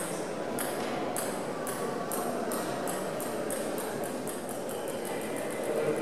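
A table tennis ball bouncing freely after a sharp first tap, its light pinging bounces coming ever quicker and fainter as it settles.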